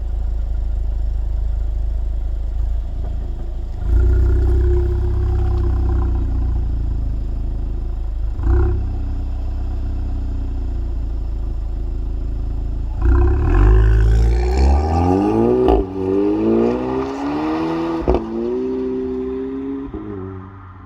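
Exhaust of a stage 2 VW Polo GTI with a Milltek downpipe and cat-back, its turbocharged 2.0-litre four-cylinder running steadily, revved briefly about four seconds in and hard about two-thirds of the way through, pitch rising then falling. Sharp cracks come out of the exhaust three times, the last two as the revs drop.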